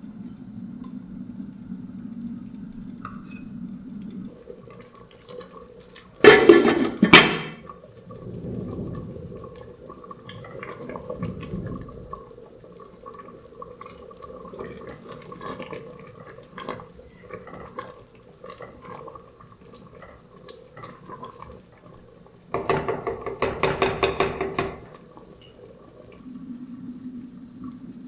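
Home kitchen cooking sounds: pots, dishes and utensils clinking and knocking, over a low steady hum. Two louder bursts stand out, a short one about six seconds in and a longer one of a couple of seconds about 23 seconds in.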